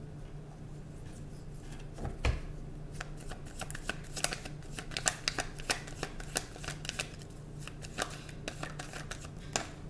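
A deck of tarot cards being shuffled by hand, the cards slapping against each other in quick, irregular clicks that start about two seconds in and stop near the end.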